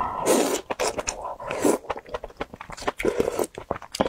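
Close-miked slurping of soup noodles, with two loud slurps, one just after the start and one about one and a half seconds in, followed by wet chewing clicks and smacks.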